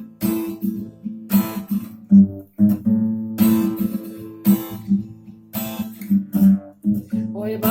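Acoustic guitar strummed as a song intro: chords struck in a steady rhythm, each group broken off by short stops.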